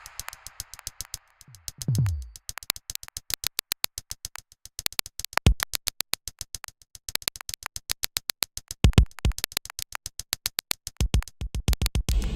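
Electronic drum-machine and synthesizer sounds from the Moebius Lab app: a fast train of sharp clicking ticks, with a falling pitch sweep about two seconds in and a few deep bass hits later on.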